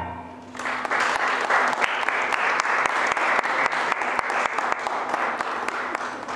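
Audience applauding, starting about half a second in as the last sung chord dies away, and thinning out near the end.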